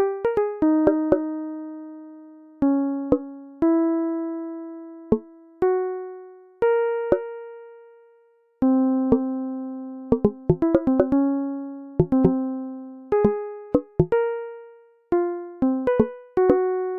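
Background music: a keyboard plays a slow melody of single struck notes that ring and fade, with a brief pause about eight and a half seconds in.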